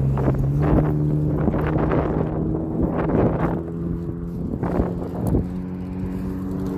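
A motor vehicle's engine running, its hum climbing in pitch in a couple of steps, with gusts of wind on the microphone.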